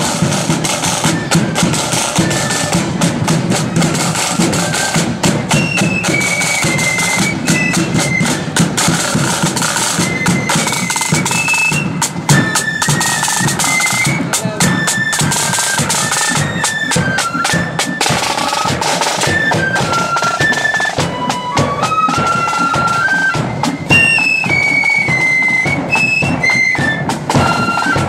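Marching flute band playing a tune: high flutes carry the melody over fast side-drum rolls and a bass drum beat.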